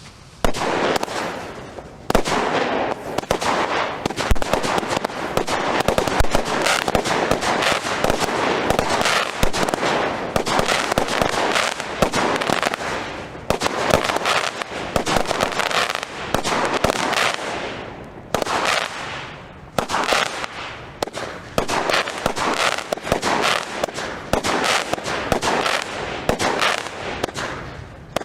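Consumer fireworks going off: dense, continuous crackling with rapid bangs, swelling and dipping every few seconds.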